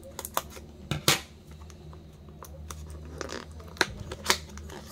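Steel scissors snipping through the paper seal sticker on a cardboard earbuds box: several sharp snips, the loudest about a second in, with cardboard rustling and a couple more clicks near the end as the box flap is worked open.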